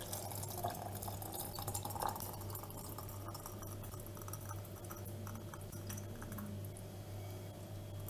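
Thick tomato sauce pouring from a stainless steel pot into glass jars: a soft, wet pour with faint drips.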